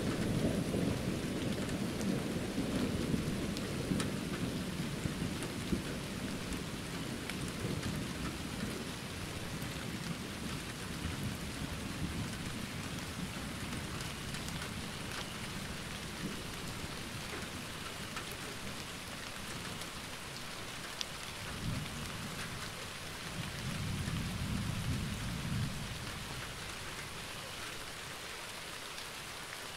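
Steady rain falling in a thunderstorm, with rolling thunder: a heavy rumble at the start that dies away over the first ten seconds or so, a short low thump a little past twenty seconds, and another brief rumble soon after.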